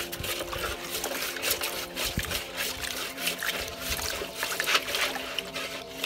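Shallow water splashing and sloshing in a plastic basin as several armored suckermouth catfish (plecos) thrash about, an irregular run of small splashes several times a second.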